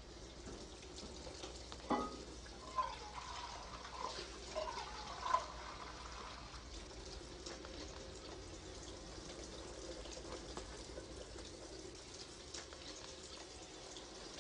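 Water running from a sink tap into a small metal pot, with a few knocks and clinks of the pot in the first few seconds.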